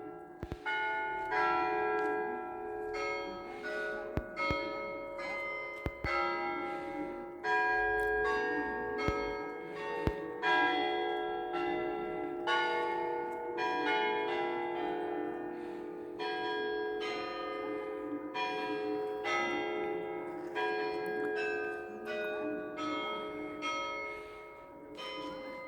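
Church bells of the Peter and Paul Cathedral bell tower ringing: a steady run of strikes on bells of different pitches, about two a second, each one ringing on under the next.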